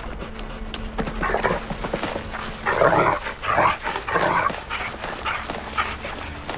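Police dog growling and grunting in short, rough bursts, loudest about three to four seconds in, as it strains to shift a heavy tyre.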